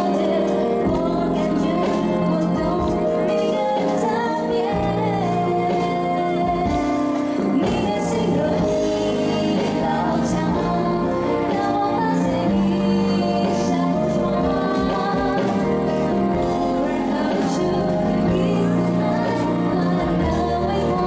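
A woman singing a pop song live into a microphone, amplified through a PA, over a band accompaniment with a steady beat.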